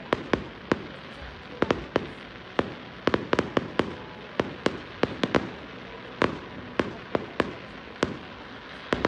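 Aerial fireworks going off: a string of sharp bangs at irregular spacing, sometimes several in quick succession, over a continuous crackling hiss.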